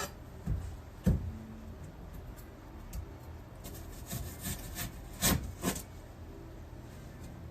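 Kitchen prep handling: a few separate knocks, about a second in and twice around five seconds, with light rubbing and scraping between them, as onion is moved into water and handled on the counter.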